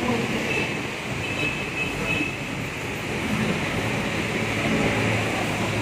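Steady city street noise of passing traffic, a continuous rumble and hiss.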